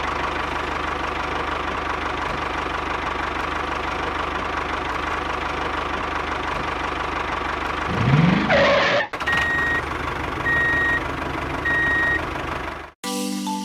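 Vehicle engine running steadily, then a rising rev, followed by three evenly spaced reversing-alarm beeps about a second apart.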